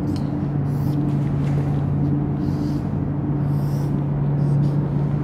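A steady low hum, with several short, faint squeaks of a marker pen stroking on a whiteboard.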